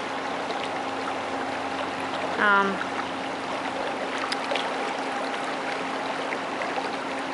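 Floodwater from a river over its banks rushing steadily through a street with a strong current. A voice says a single short word about two and a half seconds in.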